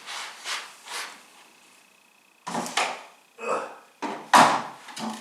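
Plywood and tools being handled after a saw cut: a series of short wooden scrapes and knocks with quiet gaps between, the loudest a knock a little over four seconds in.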